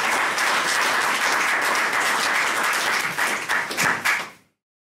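Audience applauding, a steady patter of many hands, which fades out quickly to silence after about four seconds.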